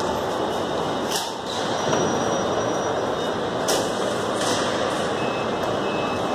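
Steady din of a busy wholesale market hall with trucks and forklifts working, a dense even noise with no single voice standing out. A few brief hissing sweeps cut through about a second in and again near four seconds.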